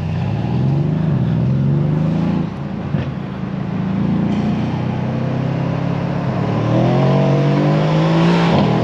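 Mercedes-AMG C63 S's 4.0-litre twin-turbo V8 (M177) accelerating hard from a standstill, heard from inside the cabin. The revs climb, drop at an upshift about two and a half seconds in with a sharp bang from the exhaust, then climb again near the end.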